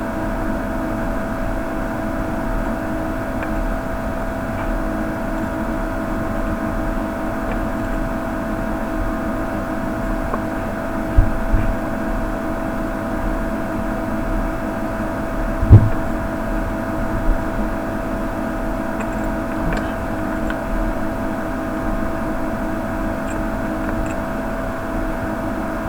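Steady mechanical hum with a constant whine, like a small fan or motor running. Two low knocks partway through, the second louder, from the work being handled on the bench.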